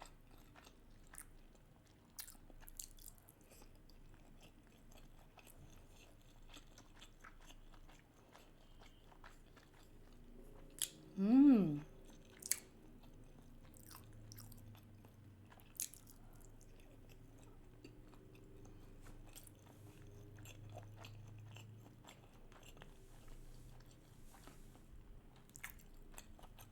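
Faint chewing and wet mouth sounds of a person eating raw salmon sushi, with scattered small clicks. About eleven seconds in there is a short hummed 'mmm' that rises and falls.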